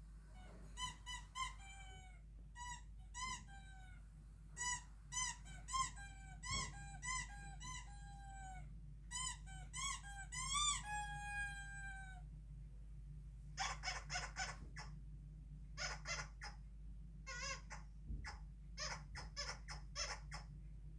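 Repeated short, high squeaks, each sliding down in pitch at its end, for about twelve seconds. After a brief gap comes a run of harsher, raspy squawks. These are sound effects played for a dog to react to.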